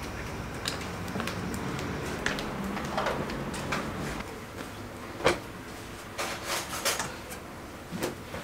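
Scattered light clicks and knocks of household objects being handled and set down, the sharpest about five seconds in and a quick cluster around six to seven seconds, over a faint steady low hum.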